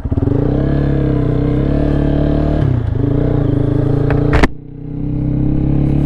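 Lifan KPM 200's single-cylinder engine, fitted with an aftermarket exhaust, pulling away at low speed. The engine note dips briefly nearly three seconds in. A sharp click comes about four and a half seconds in, after which the engine goes quiet for a moment and then builds up again.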